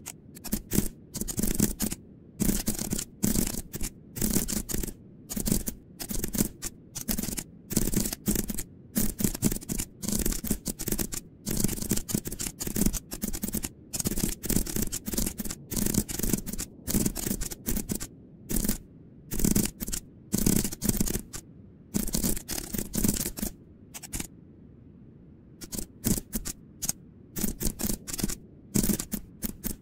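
Typing on a computer keyboard: rapid runs of clacking keystrokes in bursts, with short pauses between them.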